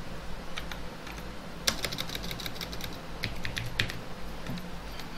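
Typing on a computer keyboard: a run of irregular key clicks in quick flurries, thickest in the middle.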